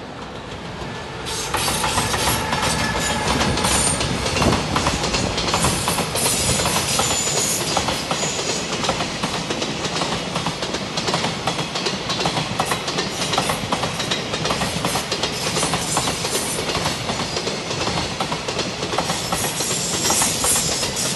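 JR Freight container train hauled by an EF210 electric locomotive passing close by. It swells over the first second and a half as the locomotive goes by, then settles into a steady, dense clatter of wheels over the rails as the long string of container flatcars rolls past.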